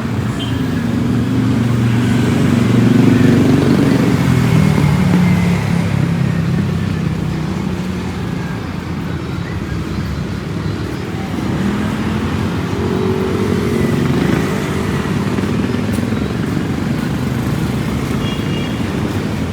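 Motor vehicles driving past on a city street, engines running. One passes loudest about three seconds in, and another goes by around thirteen seconds in.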